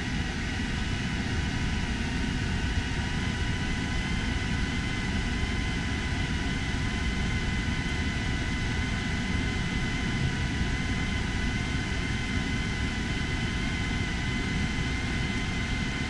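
Self-contained marine air conditioner running in cooling mode: its blower pushes a steady rush of air through the supply duct, with a faint steady whine above it.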